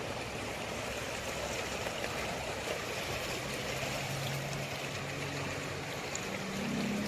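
Flint River water flowing, a steady rushing wash, with a faint low hum coming and going beneath it.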